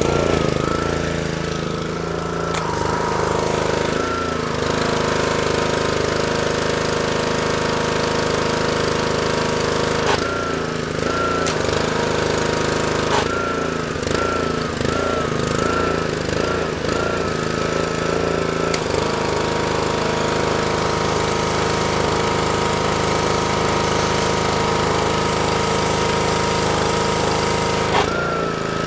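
Honda GCV160 single-cylinder engine of a Troy-Bilt pressure washer running steadily just after starting on choke, its carburetor freshly reassembled. A high whine over the engine note wavers at times, with a few sharp clicks.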